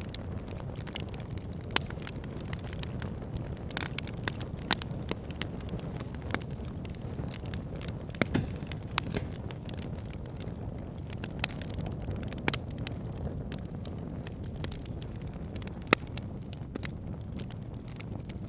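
Open fire crackling: irregular sharp pops and snaps over a steady low rumble of burning, with louder single pops a few times.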